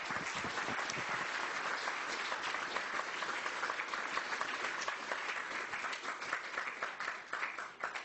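Audience applauding, a dense steady clapping that begins to thin out near the end.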